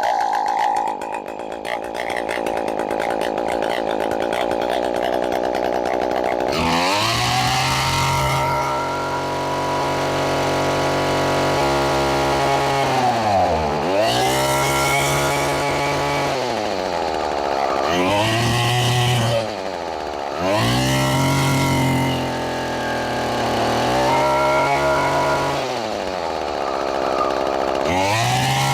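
Echo SRM-210 string trimmer's two-stroke engine running on a newly replaced carburetor: steady for about six seconds, then revved up and let fall back to idle about six times.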